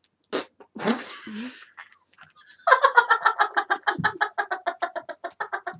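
Girl laughing hard with her cheeks full of marshmallows: a few muffled breathy snorts, then from about halfway a rapid, high-pitched run of giggles, about eight a second, that slowly fades.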